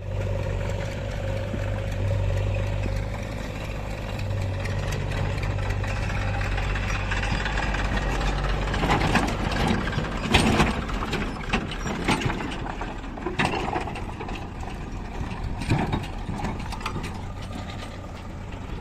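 Diesel engine of heavy earth-moving machinery running at a steady speed, with a series of irregular knocks and clatters from about nine seconds in, as the machine works a load of mud.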